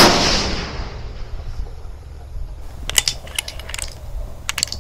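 A .308 Winchester rifle shot from a CVA Cascade bolt-action rifle, its report dying away over about a second. About three seconds in, a quick run of sharp metallic clicks as the bolt is worked to chamber the next round.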